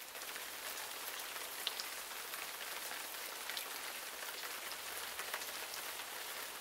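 Steady rain falling on a surface: an even hiss with scattered sharp taps of single drops.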